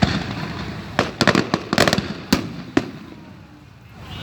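Aerial fireworks shells bursting overhead: a string of sharp bangs, a loud one right at the start and a quick cluster a second or so in, then single bangs that thin out toward the end.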